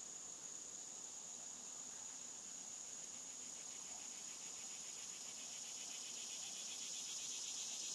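Insect chorus: a steady high-pitched drone, joined about three seconds in by a rapidly pulsing trill that grows louder toward the end.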